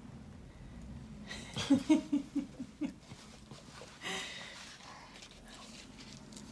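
A toddler's voice: a quick run of about six short pitched sounds, giggle-like, then a breathy huff about four seconds in.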